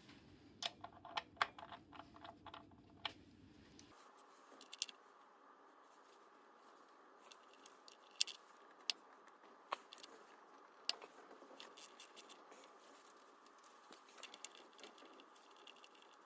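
Light, irregular metallic clicks and clinks of hand tools and small parts being handled during engine work: a quick cluster in the first few seconds, then scattered single clinks.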